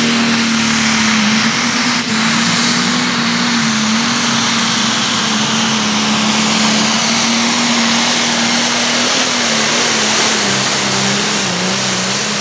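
Modified turbocharged John Deere pulling tractor at full throttle, dragging a weight-transfer sled. The engine runs at a steady high pitch under a high turbo whistle, and the note sags slightly about nine seconds in.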